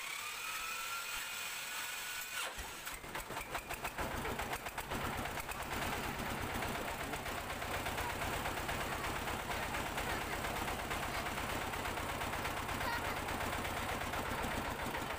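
Homemade công nông farm truck's single-cylinder D30 diesel engine being started: a rising whine of the starter for about two and a half seconds, then the engine catches with a few uneven knocks and settles into a fast, steady knocking run.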